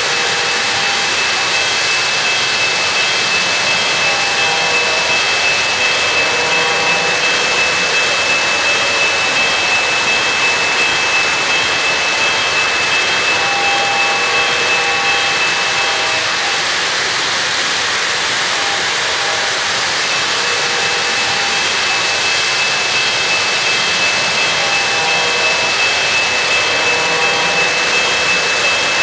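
O-gauge three-rail model trains running on metal track: a steady rolling rush of wheels on rail with a thin high whine, which fades for a moment a little past the middle.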